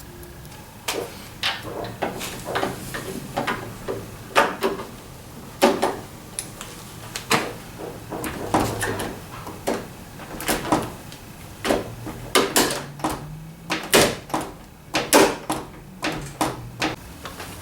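Small metal lock parts clicking and clacking as a trunk lock tumbler and its rod-retaining clip are handled and fitted together, in irregular sharp clicks and knocks with short gaps between them.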